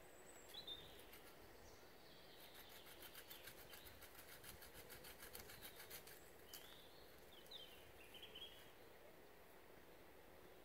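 Faint woodland birdsong: a few short, high chirps near the start and again in the second half. For about four seconds in the middle there is a quick, even run of faint small clicks.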